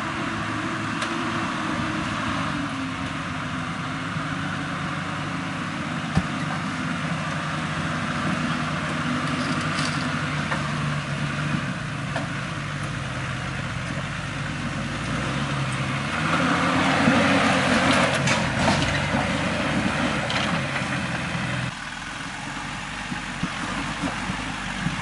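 Toyota 4x4 engine working at low revs as it crawls over rocks, its pitch rising and falling with the throttle. It revs harder for several seconds about two-thirds of the way through. There is a single sharp knock about six seconds in.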